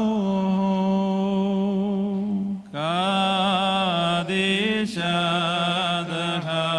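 A man's voice chanting an Orthodox liturgical hymn through a microphone in long, held notes that slide from one pitch to the next, with a short breath about two and a half seconds in.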